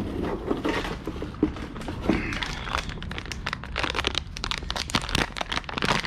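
Plastic packaging crinkling and crackling as it is handled and opened, a dense run of irregular small crackles.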